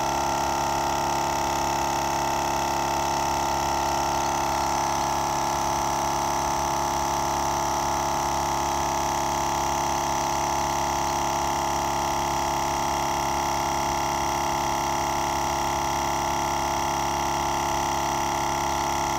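GSPSCN dual-cylinder 12V portable air compressor running steadily, a quiet, even hum with a high whine, as it pumps air through its hose into a flat truck tire whose pressure is slowly rising.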